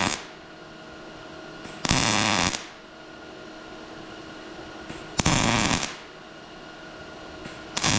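MIG welder arc crackling in short spot-weld bursts on steel plate, each under a second long: one dying away at the very start, then about two seconds in, about five seconds in, and again near the end. A faint steady hum sounds between the welds.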